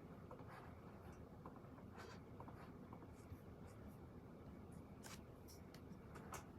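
Faint, intermittent scratching of a pen writing on paper over near-silent room tone.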